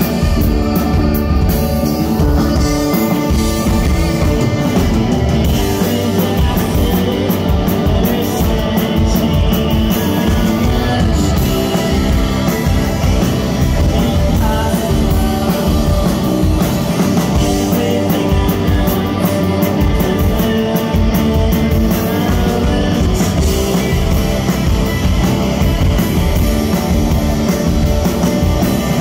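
Rock band playing live, with amplified guitars, drums and singing, loud and unbroken.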